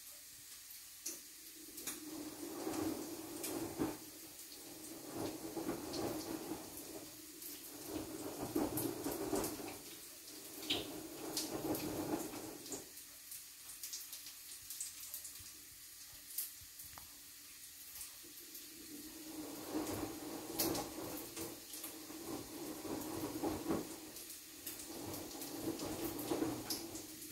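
Water running in swells that come and go every few seconds, with scattered light clicks.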